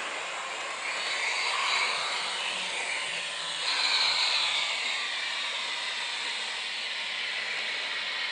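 TT-scale model of a T478 diesel locomotive running on track, its ZIMO sound decoder playing diesel engine sound through a tiny speaker, mixed with the running noise of the model's motor and wheels. The sound swells twice, about two and four seconds in.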